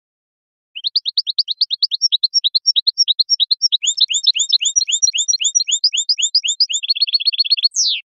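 European goldfinch song, cleanly recorded. It starts about a second in as a rapid run of short rising high notes, about seven a second, grows into a denser passage of doubled notes, breaks into a fast trill near the end, and finishes with one falling sweep before stopping abruptly.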